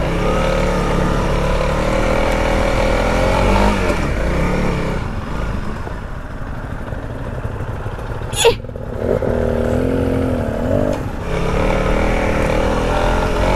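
Honda CRF300L's single-cylinder four-stroke engine running as the bike is ridden on a dirt trail, its revs rising and falling, easing off for a few seconds around the middle. A single sharp knock comes about eight and a half seconds in.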